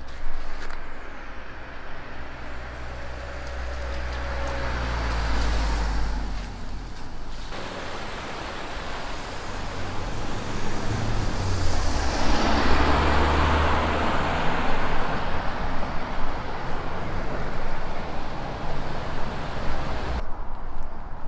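Road traffic passing: a heavy vehicle goes by in the first few seconds with a deep engine sound, then another vehicle passes with a rush of tyre noise that swells and fades about twelve to fourteen seconds in.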